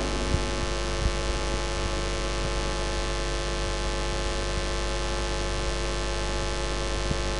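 Steady electrical mains hum and hiss from the sound or recording system, with a couple of faint clicks within the first second or so.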